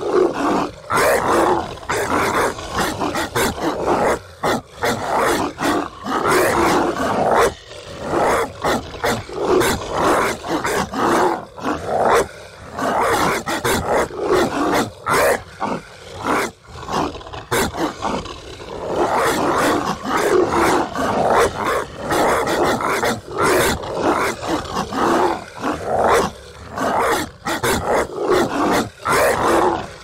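Monstrous 'zombie dog' barking and snarling sound effect: harsh, growling barks in quick succession, a dense, loud snarl with only brief gaps.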